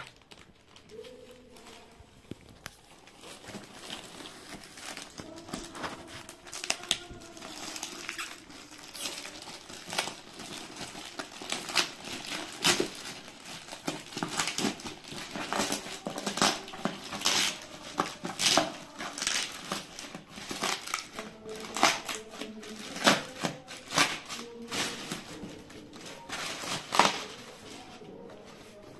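Plastic courier mailer bag and paper wrapping being torn open and crumpled by hand: irregular crinkling and ripping, getting louder and busier in the second half.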